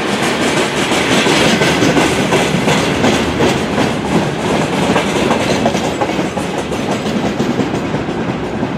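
Freight wagons rolling past at close range: a steady rumble of steel wheels on rail with rapid clicking over rail joints, easing a little near the end as the last wagons go by.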